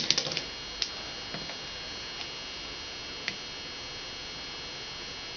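Small handling clicks and taps from working with tape on a circuit board: a quick cluster at the start, a single click about a second in, and a few faint ticks after, over a steady background hiss.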